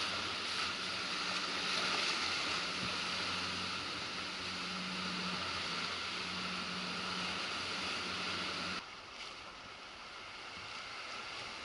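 Boat's engine running with a steady low hum under the loud rushing hiss of churning water around the hull. About nine seconds in it cuts off suddenly to quieter water lapping.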